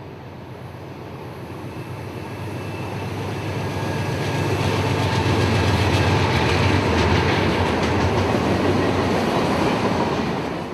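A train rolling past on the track, its wheels clicking over the rail joints; the sound grows louder over the first half and then holds steady.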